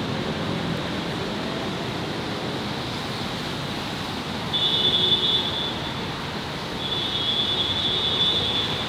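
City street ambience with a steady wash of traffic noise. Two high-pitched steady squeals or tones cut through it, one about four and a half seconds in that lasts just over a second, and a longer one about seven seconds in that lasts about two seconds.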